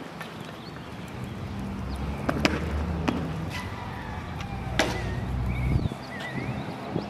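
Outdoor ambience with a steady low rumble, broken by two sharp knocks about two and a half and five seconds in, and a few short high chirps near the end.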